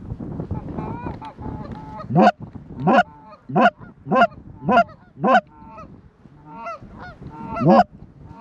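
Goose honking: a few softer calls, then a run of six loud honks about every 0.6 s, more soft calls, and one last loud honk near the end.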